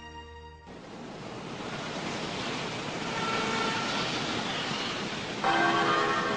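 The song's last held note dies away in the first second, giving way to a steady rushing sound of sea surf. About five seconds in, a ringing bell-like chime joins it.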